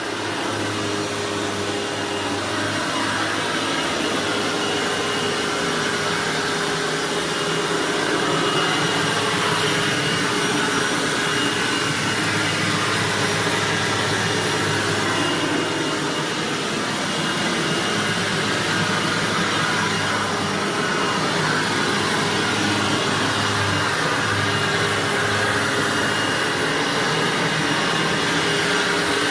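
Hoover WindTunnel bagged self-propelled upright vacuum running steadily while vacuuming carpet: a constant motor hum with a thin, high, steady whine over it.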